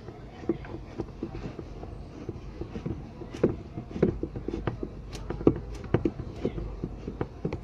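Screws being fitted and tightened into a washing machine's agitator shaft mounting: a run of irregular small clicks and metal knocks.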